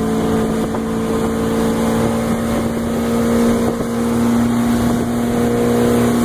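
Motorboat engine running at a steady pitch while towing a tube, with wind noise on the microphone.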